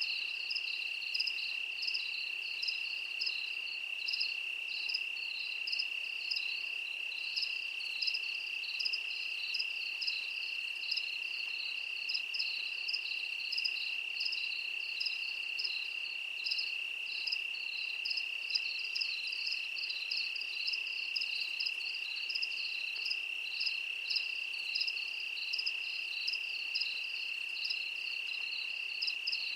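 Chorus of crickets: a continuous high-pitched trill, with a second insect's short chirps repeating about twice a second over it.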